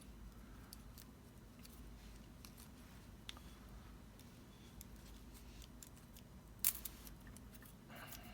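Faint, scattered metallic clicks of lock picks working the pin stacks inside a Bowley lock, with one sharper click about two-thirds of the way through. The pins are being picked back up above the sleeve to free the picks.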